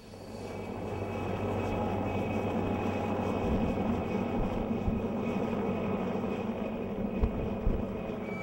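Helicopter flying low overhead: steady rotor and engine noise with a low hum. It swells over the first second, and a few sharper thumps come near the end.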